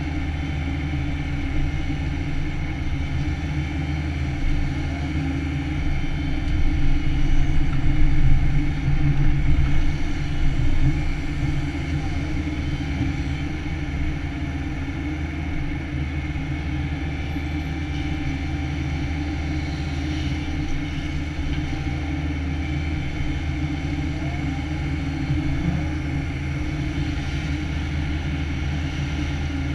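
Takeuchi TB175 excavator's diesel engine running steadily under hydraulic load, heard from inside the cab as the arm and tilting bucket work. It swells louder for a few seconds about a quarter of the way in.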